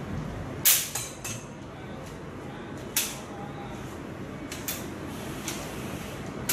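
Steel-wire cable reel of a sewer inspection camera being turned by hand to wind its 5 mm fibreglass push rod back on, giving irregular sharp clicks and knocks. The loudest comes just under a second in.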